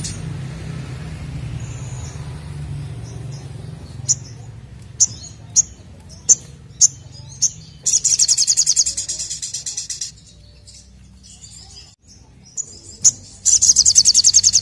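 Caged sogok ontong sunbird singing in full voice (gacor): a run of sharp single high chirps, then fast high-pitched trills about eight seconds in and again near the end. A low steady hum sits under the first few seconds.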